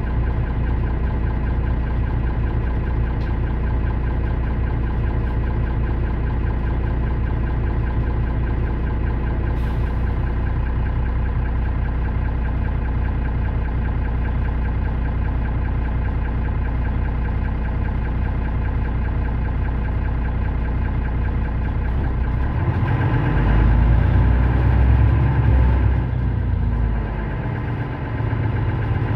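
Mercedes-Benz Citaro O530 city bus's diesel engine idling steadily while the bus stands at a stop. About three quarters of the way in, a louder, deeper rumble swells for a few seconds, then eases.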